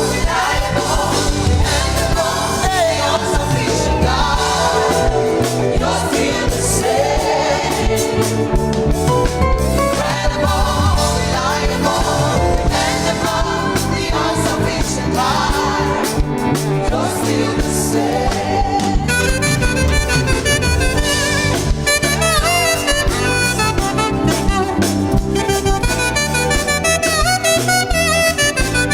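Gospel praise music from a band, with voices singing over it; about two-thirds of the way through it turns into a busier passage with a steady, evenly repeating beat.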